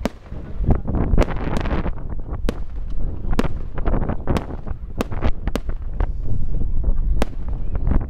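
Aerial fireworks bursting: a run of sharp bangs and crackles at irregular intervals, over a low rumble.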